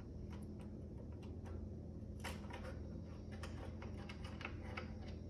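Faint, irregular small clicks and ticks of a multi-tool screwdriver working a screw out of a digital bathroom scale's plastic case, over a low steady hum.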